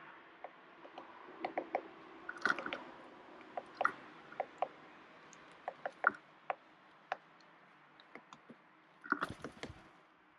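Eurasian jay making a loose series of sharp clicks and short, soft notes, with two louder clusters about two and a half and nine seconds in. A faint steady hum lies underneath.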